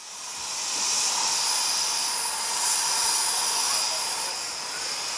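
Narrow-gauge steam locomotive letting off steam: a steady hiss that fades in over about the first second.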